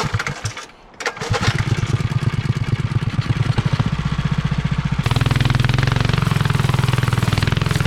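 Mini trike's small single-cylinder engine running with a rapid, even beat. It comes in about a second in, after a few knocks, and settles into a lower, steadier note near the middle.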